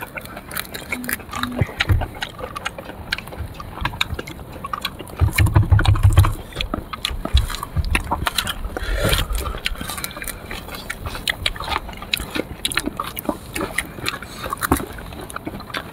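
Someone eating sour fruit: chewing and wet mouth sounds with many small crackles and clicks, and a louder low rumble about five to six seconds in.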